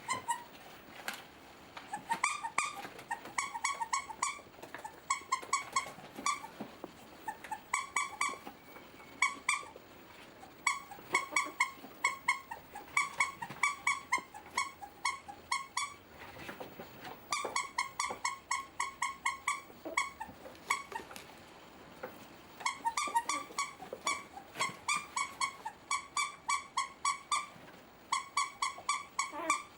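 Rubber squeaky toy squeezed over and over, giving runs of short high squeaks at about four a second, with brief pauses between the runs. It is used to call ferret kits, which take the squeaking for their mother calling.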